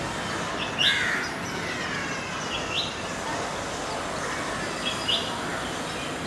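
Purple-rumped sunbird calling: short, high chirps given three times, each a quick double note, over a steady background hiss.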